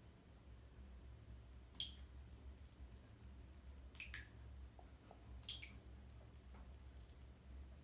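Faint bubbling of a Lush bath bomb fizzing in bathwater: three soft pops or clicks, about two, four and five and a half seconds in, over a low hum.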